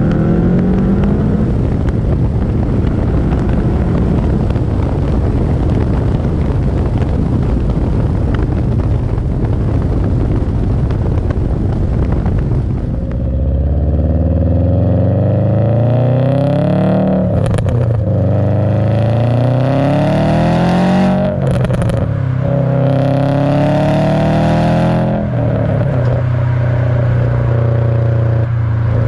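2007 Subaru WRX STI's turbocharged flat-four rumbling through its catless downpipe and HKS cat-back exhaust, recorded from a camera mounted outside the car. Over the first half a heavy rushing noise, like wind on the microphone, covers the engine. From about halfway the engine revs up through the gears, its pitch rising and dropping at each of about three shifts, then holds steady at cruise near the end.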